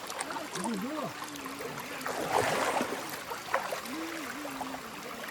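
Waterfall stream water running steadily, with a brief louder rush of water about two seconds in. Distant people's voices sound faintly over it.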